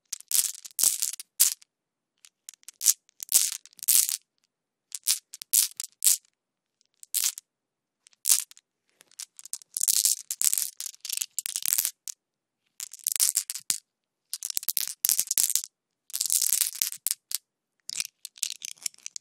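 Glass marbles handled in the hand, clicking and rattling against one another in short bursts separated by brief silences. The bursts grow longer and denser from about halfway through.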